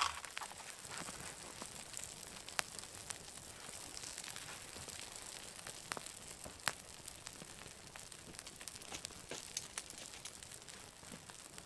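Small wood fires crackling on three Swedish fire torches (upright split log sections), with scattered sharp pops. A footstep crunches in snow at the very start.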